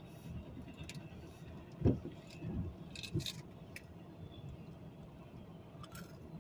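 CSX freight train rolling past in the snow: a steady low rumble with a few knocks and clunks about two to three seconds in, and light metallic clicking.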